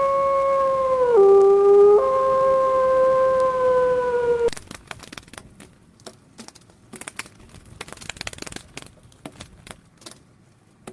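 A canine howling: one long held note that dips lower for about a second, then comes back up and stops about four and a half seconds in. After it come scattered faint clicks and taps.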